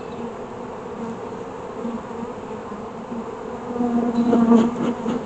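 Honeybees buzzing around an open hive, a steady hum that swells louder about four seconds in.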